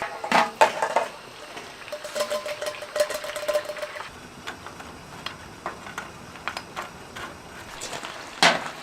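Camp cookware and utensils clinking and knocking, with a metal ringing tone for a couple of seconds in the middle, over a steady patter of rain.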